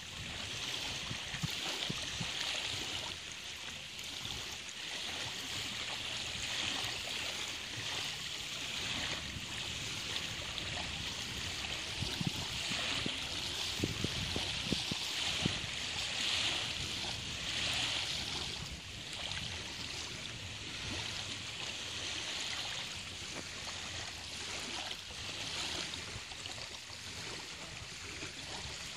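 Small waves lapping at the shore: a washing hiss that swells and fades every second or two. Low thumps of wind on the microphone run under it.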